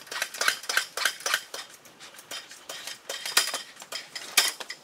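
Irregular metallic clinks and knocks, several a second, as a manual transmission on a transmission jack is raised and worked up into place under a car.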